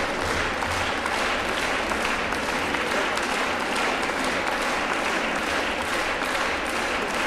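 A large audience applauding steadily, a dense, even clapping of many hands.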